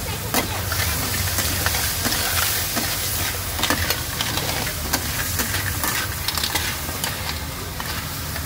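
Food sizzling as it is stir-fried in a wok, with a metal spatula scraping and clinking against the pan many times, over a steady low hum.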